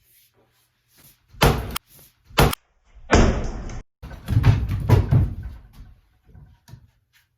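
Plumb double-bit axe splitting firewood: two sharp strikes of steel into wood about a second and a half and two and a half seconds in, then a longer stretch of rougher knocks and crunching.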